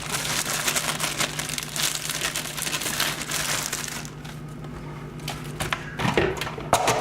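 Crisp crinkling and crunching from handling romaine lettuce hearts, dense for about four seconds and then breaking into a few scattered clicks and knocks. A low steady hum runs underneath.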